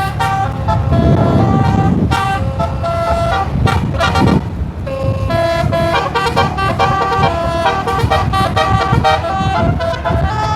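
Bus 'telolet' multi-tone horn playing a quick melody of stepped notes, switching pitch several times a second with a short break near the middle. The bus engine runs underneath.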